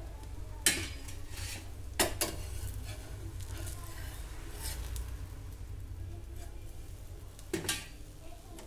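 Flat metal spatula scraping and knocking against a dosa tawa as it is worked under a cooking dosa. There are sharp scrapes about a second in, a pair at about two seconds and another pair near the end, over a steady low hum.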